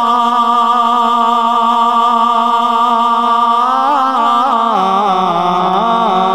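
Male voice singing a sehra (Urdu wedding song) in chant-like style, holding one long steady note and then breaking into a wavering, ornamented run that steps down in pitch about four and a half seconds in.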